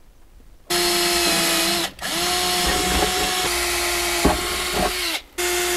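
Cordless drill-driver driving screws in: the motor runs at steady speed in three spells with short stops between them, and two sharp clicks come near the end of the second spell.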